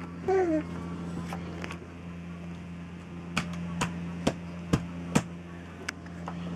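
A baby's short coo with falling pitch near the start, then a run of sharp plastic clicks and knocks in the middle as a baby handles a toy phone, over a steady low hum.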